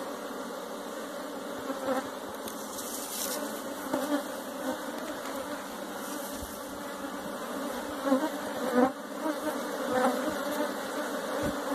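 Honey bees buzzing in a steady, even hum over an opened hive, with now and then a single bee's buzz gliding up or down in pitch as it flies close by.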